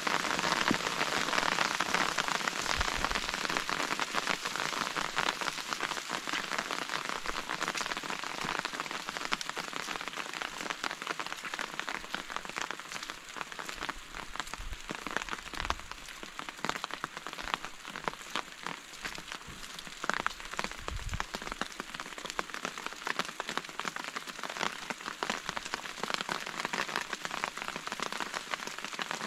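Steady rain falling, with a thick wash of many individual close drops. A few soft low bumps come through now and then.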